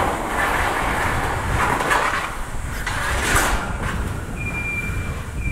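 Corrugated steel roof sheet scraping, sliding and flexing over the laid roof panels as it is swung into place, with a couple of sharper metal knocks about two and three and a half seconds in.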